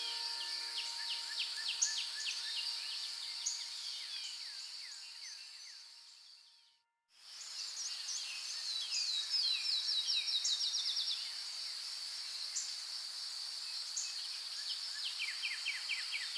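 Field ambience of insects droning steadily with small birds chirping and giving quick trills. It fades out to silence about six to seven seconds in, then fades straight back in.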